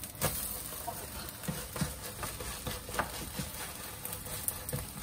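A plastic spatula knocking and scraping against a nonstick frying pan a few times as a thin egg sheet is flipped, over a light steady sizzle of frying egg.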